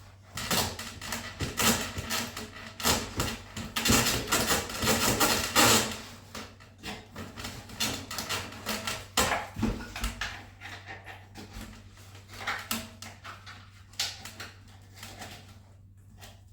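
Squeaky foam model stand squeaking and creaking under an RC biplane being handled, with a string of irregular clicks and knocks as the bottom wing is fitted. Busiest in the first six seconds, thinning out toward the end.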